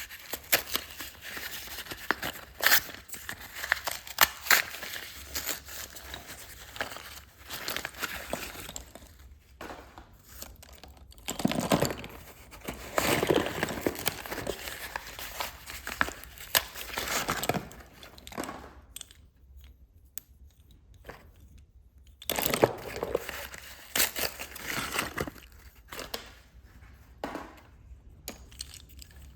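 Packaging of a new box of slate pencils being handled and opened: crinkling and tearing in irregular bursts, louder near the middle and again about two-thirds through, with a quieter pause between.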